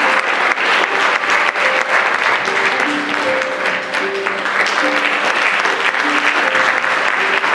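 An audience clapping steadily, with music playing underneath as a run of single held notes heard through the clapping.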